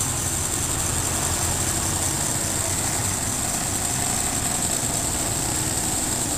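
An engine idling with a steady low rumble that does not change, over a constant high-pitched hiss.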